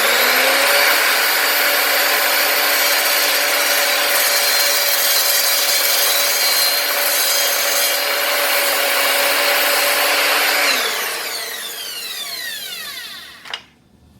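Evolution R255SMS multi-material sliding mitre saw running at full speed and cutting through a 2x4 with nails driven into its end, the motor whining steadily over the cutting noise; the blade cuts right through the nails. About eleven seconds in the motor is switched off and winds down with a falling whine, ending in a sharp click.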